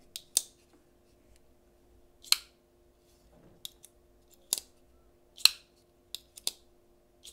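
TRM crossbar-lock folding knife being flicked open and closed again and again: about a dozen sharp clicks at irregular intervals, some in quick pairs, as the blade swings past the detent and the crossbar lock snaps into place.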